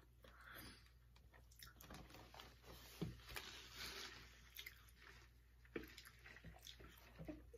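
Faint chewing of soft chocolate-frosted donuts, with irregular wet mouth clicks and smacks and a sharper click about three seconds in.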